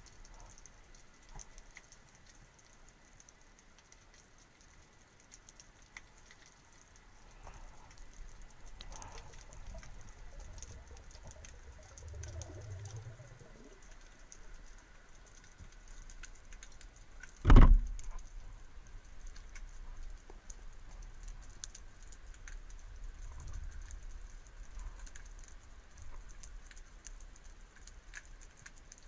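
Underwater ambience around a rocky seabed: a steady fine crackle of tiny clicks with low rumbles of movement now and then. One sharp, loud knock comes about seventeen seconds in.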